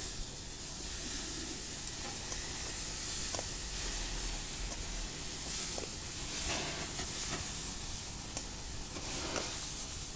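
Ribeye steaks and oiled zucchini slices sizzling steadily on the hot grates of a gas grill, with a few light clicks as tongs set more zucchini down.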